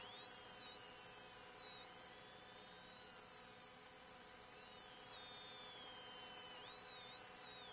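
Police siren wailing faintly, its pitch rising and falling slowly, over a steady hum.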